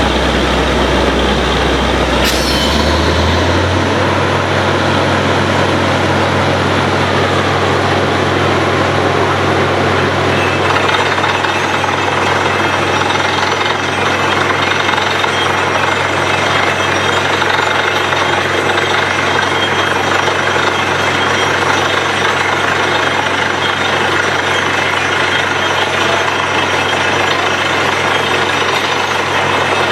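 Borewell drilling machine running loudly and continuously; its low motor note rises about two to three seconds in, then holds steady under a dense mechanical clatter.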